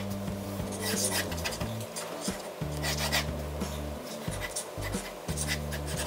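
Pen strokes scratching quickly across paper, one short stroke about every half second to a second, over background music with sustained low notes.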